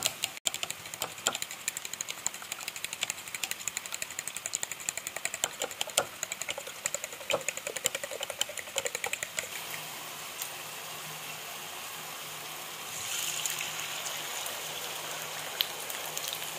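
A metal fork beating eggs in a ceramic bowl, rapid fast clinks against the bowl that stop about two-thirds of the way through. Near the end the beaten egg sizzles as it hits a hot tawa.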